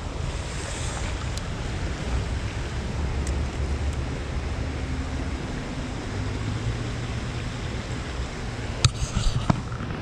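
Steady rush of flowing river water, with wind rumbling on the microphone. A few sharp clicks about nine seconds in.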